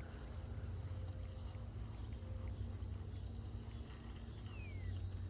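Faint outdoor ambience with a steady low hum and a light high hiss. Near the end a bird gives one thin whistled note that falls in pitch.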